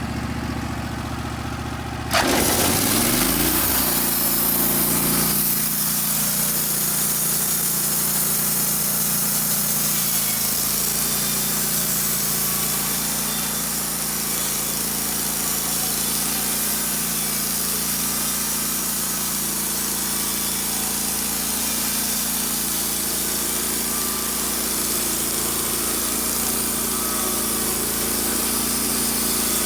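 Wood-Mizer LT15 Wide sawmill engine idling, then throttling up sharply about two seconds in as the bandsaw blade comes up to speed. The engine and blade then run steadily under load, sawing through a pine log.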